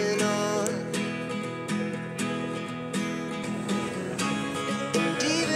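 Background music carried by strummed acoustic guitar chords.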